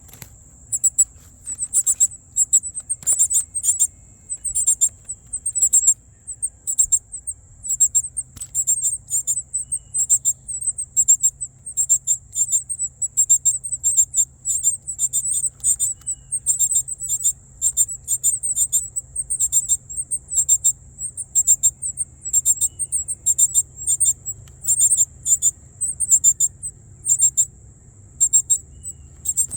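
Northern cardinal nestlings begging for food: very high-pitched chirps in short rapid clusters, repeating every second or so.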